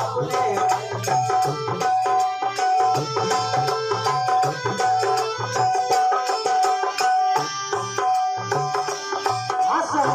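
Instrumental passage of a Bundeli folk song: a harmonium plays a repeating melodic phrase over a steady dholak drum rhythm. Singing comes back in near the end.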